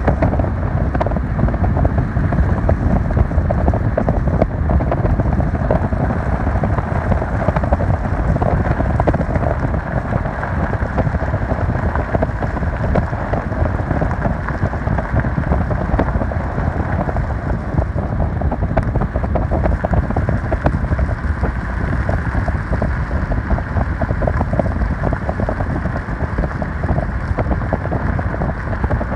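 Spring runoff floodwater rushing steadily, an even hiss over a heavy low rumble.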